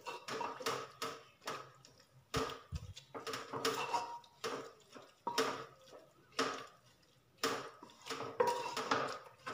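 Wooden spatula stirring grated carrots in milk inside a pressure cooker, scraping and knocking against the pot in uneven strokes about two a second.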